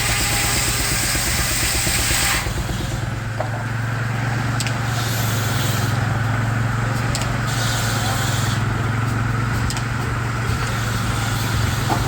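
Steam-driven Frick sawmill running: a loud rushing, hissing noise cuts off suddenly about two seconds in, leaving the steady low hum of the mill and its Baker steam engine, with a few short clicks and brief spells of hiss.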